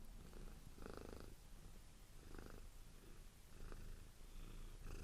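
A cat purring softly, in faint swells a little over a second apart.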